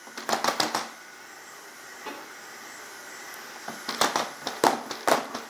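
Unitree Go2 robot dog's feet tapping on a hardwood floor as it steps through a dance routine: a quick cluster of taps in the first second, then a pause, then a busier run of taps from about four seconds in, over a faint steady hiss.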